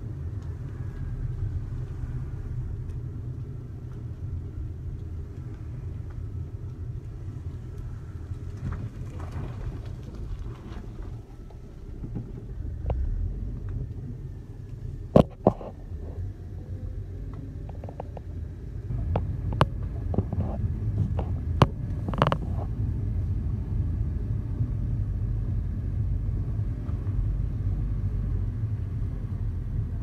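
A steady low rumble, with a few sharp knocks about halfway through.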